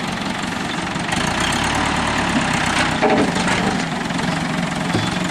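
Ford pickup truck's engine running steadily, with a brief louder surge about three seconds in.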